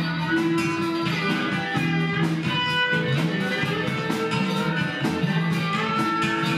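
Live band music led by an electric guitar, playing blues-style over low bass notes with a steady beat.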